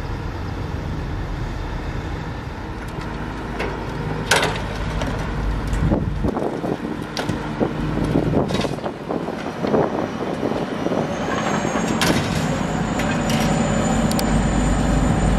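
Heavy diesel machinery running steadily with a deep rumble, with several sharp metallic knocks and clanks.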